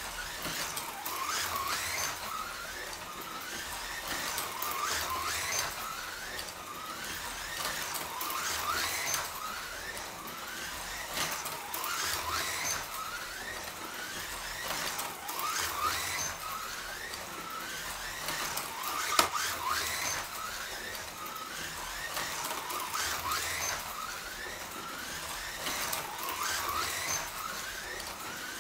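Scalextric Ford Focus WRC slot car's sidewinder electric motor whining round the track, its pitch rising again and again as it accelerates out of the corners. The sound swells about every three and a half seconds as the car comes round each lap, with one sharp click a little past two-thirds through.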